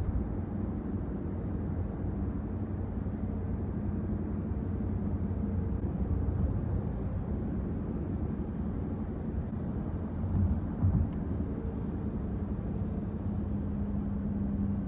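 Steady low drone of road and engine noise inside a moving car's cabin, with two low bumps about ten and eleven seconds in.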